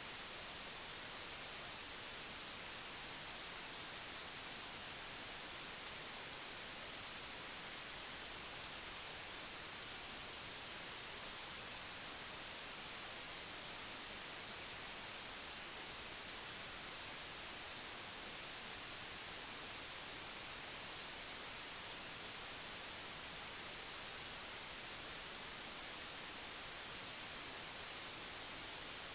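Steady, unchanging hiss of static, brighter toward the top, with no other sound standing out.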